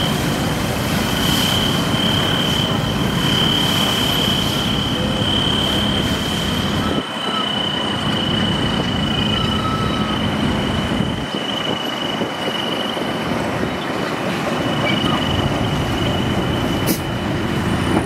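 Tractor-mounted rotary road-sweeper brush scrubbing the road, a steady hiss over the tractor's running engine, with a high steady whine that comes and goes. After about seven seconds the sound changes to road traffic as a pickup and a van pass close by.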